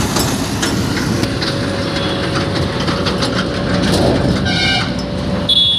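Running engine and road noise heard from inside a moving road vehicle, steady throughout. A short horn blast sounds about four and a half seconds in.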